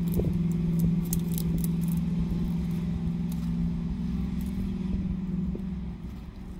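A steady low engine hum, like a motor vehicle running close by, that fades out near the end. Over it come light crinkles and clicks of a plastic toy wrapper being peeled.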